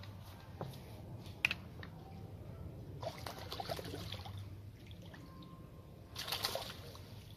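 Water splashing and dripping as a small hooked roach is drawn to the surface and lifted out, in two short spells about three and six seconds in, with a sharp click about one and a half seconds in.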